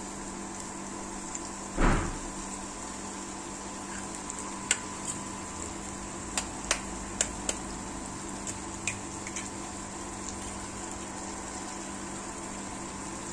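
Eggs being cracked into a wok of frying tomato-onion masala: one louder knock about two seconds in, then a scatter of short sharp clicks, over a steady hiss.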